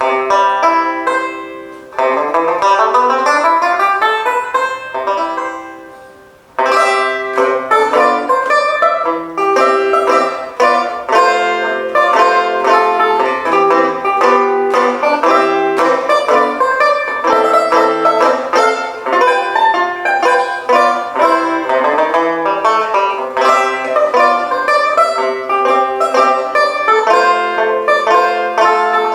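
Epiphone Recording Dansant four-string tenor banjo played with a pick: two chords struck and left to ring out, the second with notes sliding up in pitch, then from about six seconds in a steady tune played in strummed chords.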